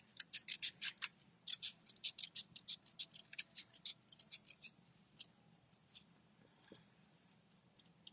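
Small paper-craft scissors snipping through cardstock while fussy cutting around a stamped image: a quick run of short snips, about five a second, that thins out to a few scattered snips after about five seconds.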